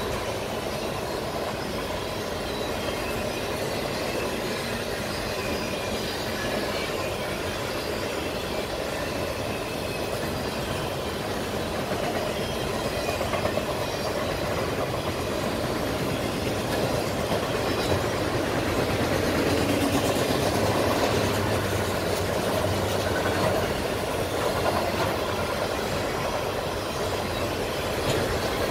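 A train's railroad cars rolling past on the track: a steady rumble and rattle of wheels on rail that grows a little louder partway through.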